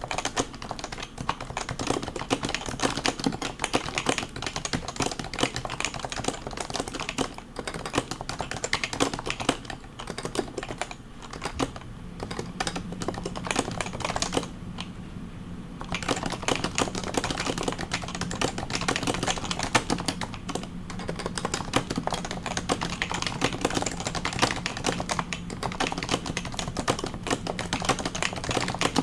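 Fast, continuous typing on a stock HHKB Professional 2 keyboard with Topre switches: a dense stream of keystrokes, with a short pause about halfway through.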